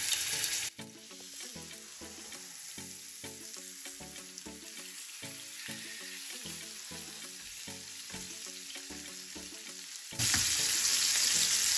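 Salmon fillets frying in hot oil in a non-stick pan, with a loud sizzle. Under a second in, the sizzle drops to a faint hiss beneath soft background music, and the loud sizzle comes back suddenly near the end.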